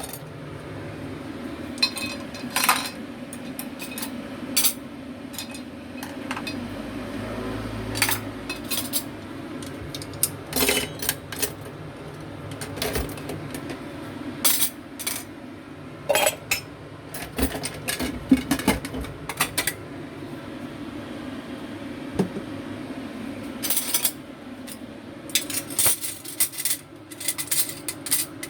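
Kitchen utensils, dishes and pots clinking and knocking at irregular intervals during cooking preparation, over a steady low hum.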